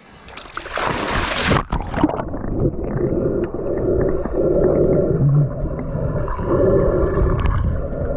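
A splash lasting about a second as the action camera goes into the water, then the muffled, dull rumble and bubbling of water heard by the camera's microphone submerged, with the high sounds cut off.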